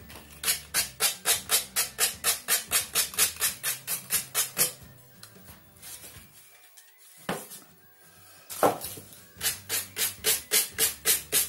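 Fine sandpaper rubbed back and forth along a decoupaged drawer's edge to sand off the leftover napkin, in even strokes about three a second; the strokes stop for a few seconds in the middle, then start again. Background music plays underneath.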